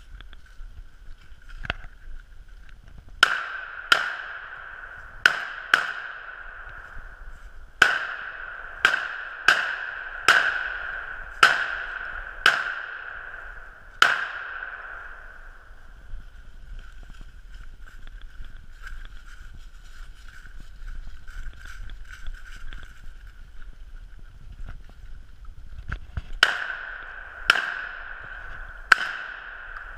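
Remington Versa Max semi-automatic 12-gauge shotgun firing: about eleven shots in uneven singles and quick pairs over some eleven seconds, then a pause of about twelve seconds, then three or four more shots near the end. Each shot has a short ringing tail.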